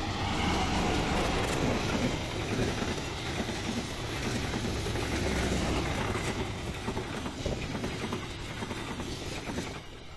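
Passenger train passing close by at speed: the CC201 diesel-electric locomotive goes past, followed by a long string of coaches with steady wheel-on-rail rumble, which eases off near the end.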